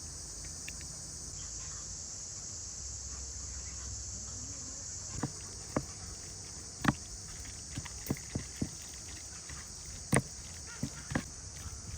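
Steady high-pitched insect chirring, like crickets, with irregular sharp knocks and taps from about halfway through.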